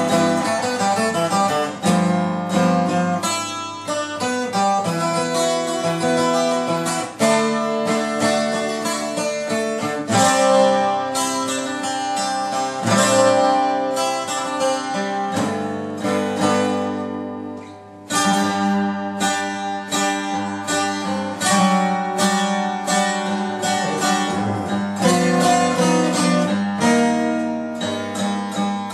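Acoustic guitar music, picked and strummed.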